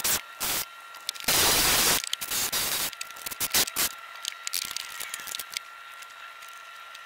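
Cordless drill run in a few short bursts, with one longer, louder run of under a second about a second and a half in, working at an aluminium door sill; after about four seconds only light clicks and handling taps.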